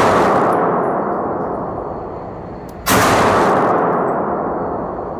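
9mm STI Hawk 5.0 2011 pistol fired on an indoor range: the long echoing tail of one shot fades out, and another shot goes off about three seconds in, ringing off the range walls.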